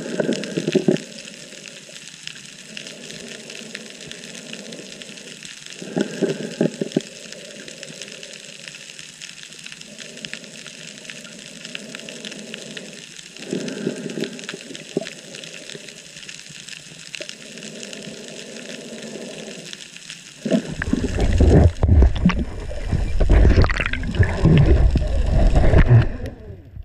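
Water sounding against an underwater camera, a steady hiss that swells about every six or seven seconds. About twenty seconds in it becomes a loud, deep rushing of water as the camera is carried quickly down the rope.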